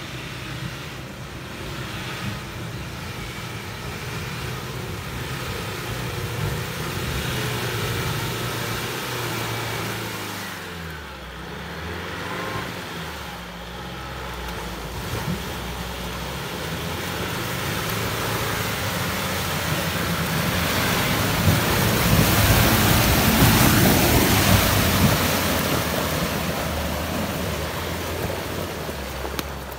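Nissan Patrol off-roader's engine revving under load as it drives through deep water and mud, its pitch stepping up and down with gear changes, with water and mud splashing. The sound builds to its loudest about three-quarters of the way through as the vehicle passes close, then eases as it pulls away.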